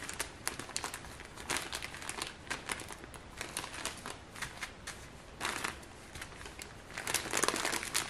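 Small plastic zip-lock bags of diamond-painting drills crinkling and rustling as they are handled and pulled from a larger plastic bag, in irregular crackles that grow busier and louder near the end.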